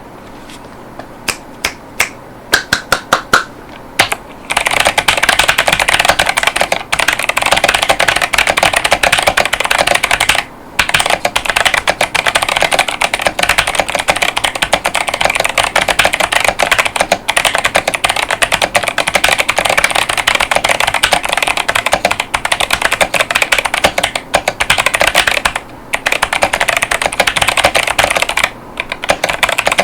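Fast typing on a mechanical keyboard with Kailh Box White clicky switches, each keystroke a sharp click. A few separate key presses open it, then dense continuous typing starts a few seconds in, broken by short pauses.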